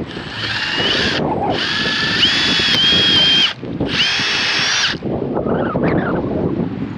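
A power drill running in three bursts, each spinning up with a short rising whine and then holding a steady pitch; the middle burst is the longest.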